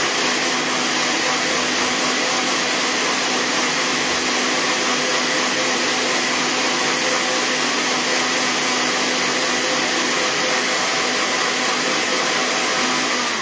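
Personal bullet-style blender running at full speed, whipping chickpea water with mustard and cider vinegar until light and fluffy as the base for vegan mayonnaise. A steady loud whir with a constant hum note underneath, starting to wind down at the very end.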